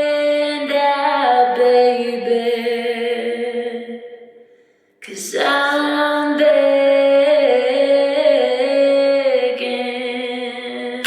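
Music of a woman singing long held notes with no beat. The singing fades away about four seconds in, stops for about half a second, then starts again with more sustained notes.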